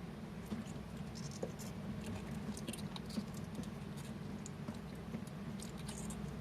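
Faint, irregular light scratches and small clicks over a steady low hum.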